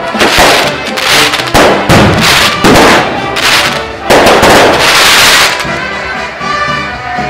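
Aerial fireworks bursting overhead: a quick run of loud bangs, then a longer crackling burst about four seconds in. The bangs die away near the end, leaving music underneath.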